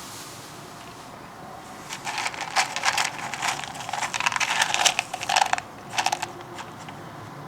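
A cat eating, a quick run of wet chewing and smacking clicks that starts about two seconds in, stops, and comes back briefly once more.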